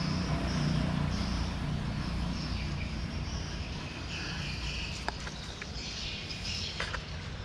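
Faint, short, high bird chirps repeating about twice a second over a steady low rumble of background traffic, with a few sharp clicks near the end.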